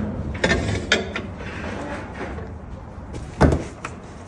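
A few clicks and knocks from the latches and body panels of a 2012 Honda Civic being handled, then a louder solid thump about three and a half seconds in.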